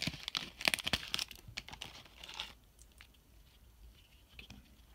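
Foil wrapper of a trading-card pack being torn open and crinkled, in quick crackly bursts over the first two and a half seconds.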